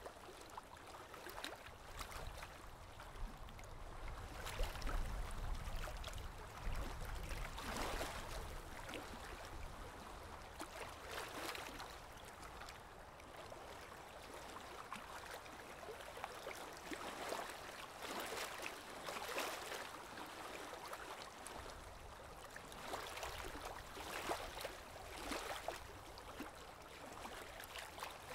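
Small lake waves lapping on the shore, coming in soft washes every few seconds, with a low rumble about four to seven seconds in.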